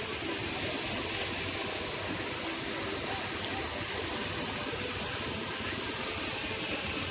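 Steady rush of water from a small garden waterfall and rocky stream.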